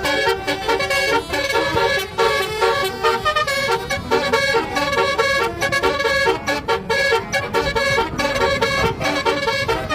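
Telolet-style Basuri musical vehicle horn playing a tune: a quick run of horn notes stepping from pitch to pitch with no break.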